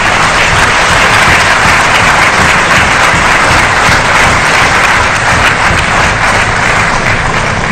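Audience applauding, a large crowd clapping steadily.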